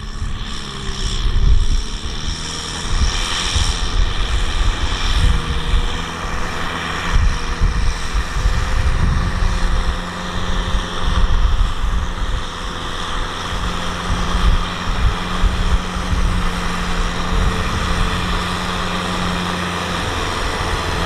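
Kubota M6040SU tractor's diesel engine running steadily under load as the tractor pulls a loaded rice trailer through deep mud, a continuous low drone that swells and dips in loudness.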